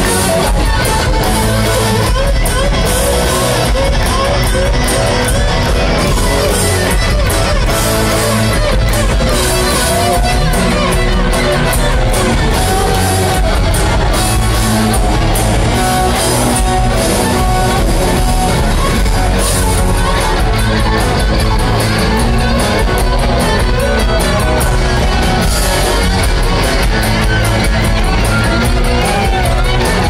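Live rock band playing loud: several electric guitars play lead lines together, with notes bending and sliding over bass and drums, heard from within the audience.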